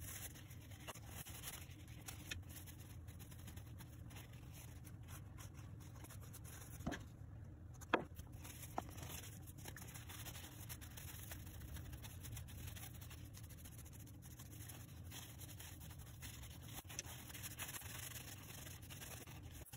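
Quiet rubbing and crinkling of a paper towel as small brass screwdriver parts are wiped and polished in it. Two sharp clicks about a second apart near the middle, the second the louder.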